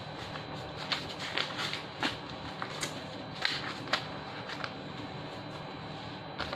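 Banknotes being counted by hand: irregular crisp flicks and snaps of notes peeled from a stack, about a dozen, with soft rustling between them.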